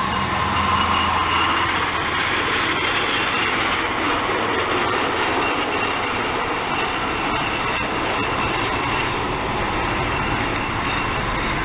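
Union Pacific freight train going away: the rear diesel locomotive's low engine rumble fades within the first couple of seconds, while a steady rush of wheel and rail noise carries on.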